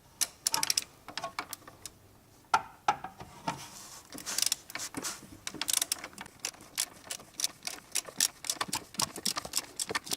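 3/8-inch socket ratchet clicking as it works the 32 mm nut on the Ecotec oil filter housing cap through a universal joint and extension: scattered clicks at first, then a quick, steady run of clicks through the second half.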